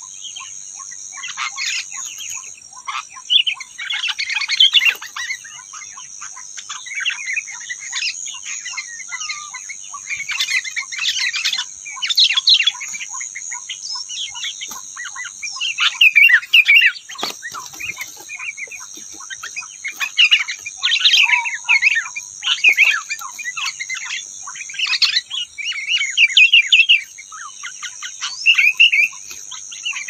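Small songbirds chirping and singing in rapid, overlapping bursts of notes throughout, over a steady high-pitched drone.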